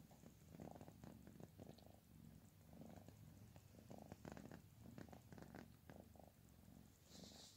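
A young tabby cat purring faintly while its head is stroked. The purr swells and eases with each breath, about once a second, with a brief rustle near the end.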